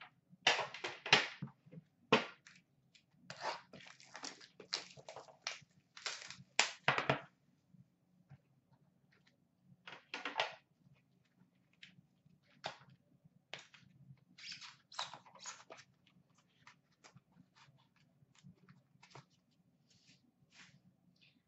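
Hands handling a hockey card box and its cards: short clicks, taps and scrapes of the lid and packaging as it is opened and the cards are lifted out. They come thick and fast for the first seven seconds or so, then only now and then.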